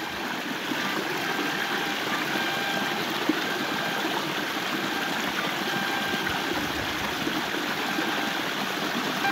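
Small waterfall splashing down over rocks into a pool: a steady rushing of water, a little loud.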